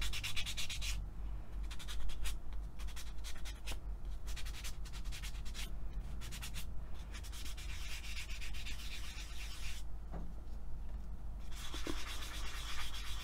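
Polymer clay piece being hand-sanded with a fine wet-and-dry sanding pad, in quick back-and-forth rubbing strokes. The strokes stop for about a second and a half around ten seconds in, then resume.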